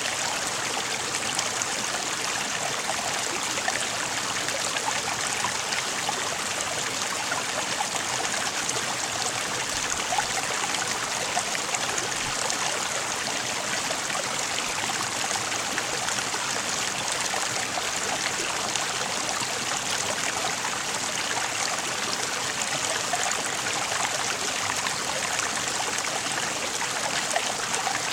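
Running water of a stream flowing steadily, an even rush flecked with small splashes.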